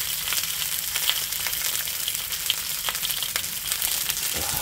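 Chicken thighs frying skin-side down, a steady sizzle with many small crackling pops as the skin browns.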